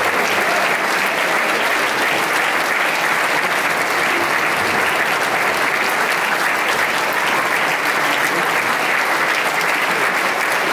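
Concert audience applauding steadily: dense, even clapping from a large crowd.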